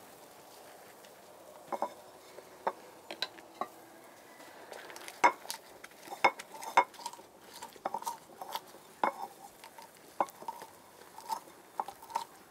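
Stone pestle pounding and grinding roasted green chiles in a clay molcajete, crushing them coarsely. Irregular sharp knocks of stone on clay, a few at first and coming quicker from about five seconds in.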